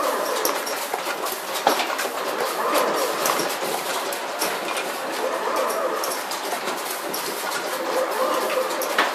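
Steady machine clatter with irregular clicks and clacks, from a stepper-motor-driven rotary indexing table turning among other running factory machines.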